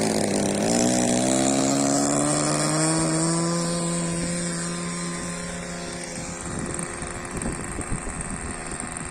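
RC model warplane's engine rising in pitch as the throttle opens, then holding steady and fading as the plane flies off.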